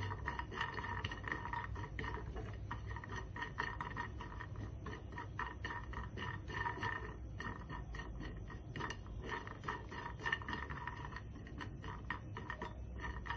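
Metal spoon scraping and clicking against a nonstick frying pan as walnut halves are stirred while lightly frying in a little oil: a busy, uneven run of small clicks and scrapes.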